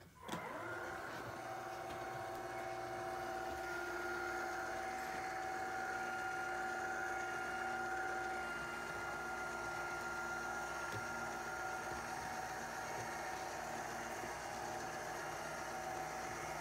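Litter-Robot 3 automatic litter box running its cleaning cycle: the drive motor starts up just after the beginning and turns the globe with a steady hum and a gear whine.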